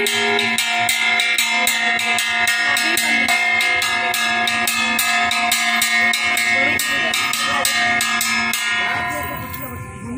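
Brass puja hand bell rung rapidly during an aarti, about four strikes a second, its metallic ringing building into a steady wash of overtones. It fades out near the end.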